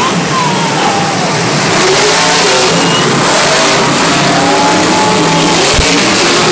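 Monster truck engines revving hard and loud, a continuous din that swells about two seconds in.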